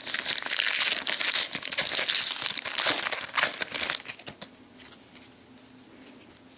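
Foil trading-card pack wrappers crinkling and tearing as packs are opened and handled. Dense crackling for about four seconds, then dying down to faint rustles.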